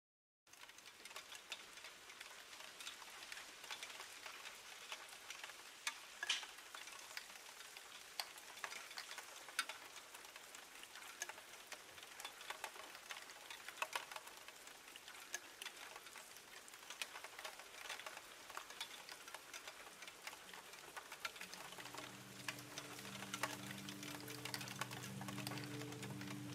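Faint crackling hiss with many scattered small clicks, like record crackle or light rain, as the quiet opening of a background music track; near the end, low sustained chord tones come in.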